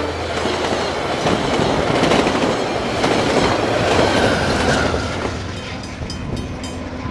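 VIA Rail passenger train rushing past, its wheels clacking over the rail joints, with the trailing diesel locomotive going by about four seconds in. After that the sound fades as the train moves away.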